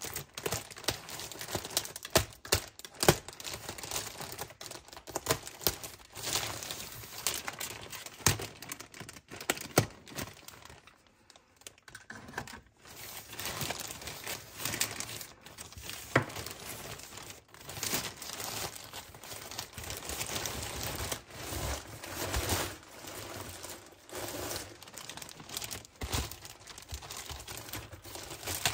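Plastic packaging crinkling and rustling as items are unpacked by hand, with many sharp clicks and taps mixed in. The handling pauses briefly about eleven seconds in.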